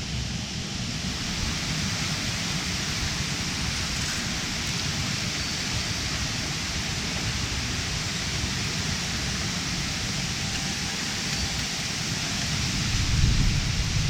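Steady rushing of river water, a continuous even hiss, with a low rumble that grows louder near the end.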